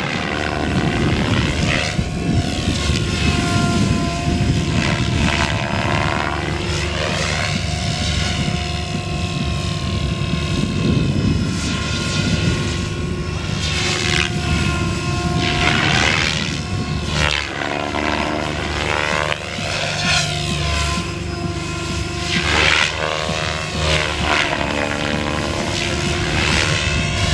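SAB Goblin 630 electric RC helicopter flying 3D aerobatics. The main rotor chops and whooshes over a steady motor and gear whine, and the sound sweeps up and down in pitch again and again as the blades load and unload through the manoeuvres.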